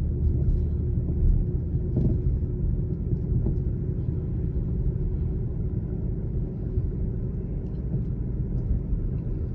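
Steady low road rumble heard inside the cabin of a Lexus LS460 driving on a smooth street, with a faint steady hum underneath.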